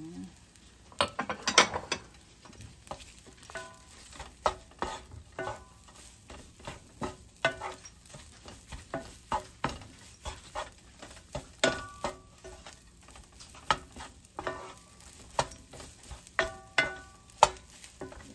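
Wooden spatula stirring and tossing fried rice in a nonstick frying pan: repeated scrapes and knocks against the pan, some ringing briefly, over a light sizzle.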